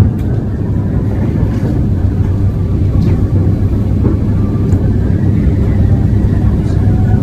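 A steady low mechanical rumble with a hum.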